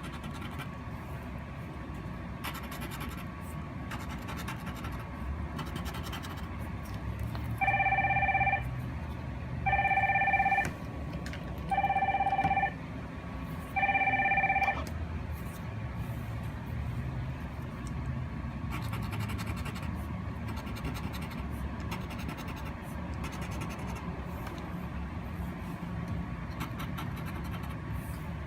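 A phone rings four times, about two seconds apart, each ring a steady electronic two-pitch tone under a second long. Under it, a coin scrapes across a lottery scratch ticket with fine scratchy strokes, over a low steady rumble.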